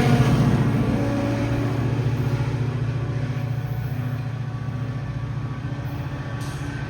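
Diesel locomotive of a GO Transit commuter train, an MP40PH-3C, running with a steady low drone that fades away steadily.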